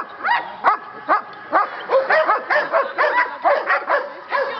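Black Russian Terrier barking over and over, about two to three barks a second, at a decoy in a bite suit during protection training.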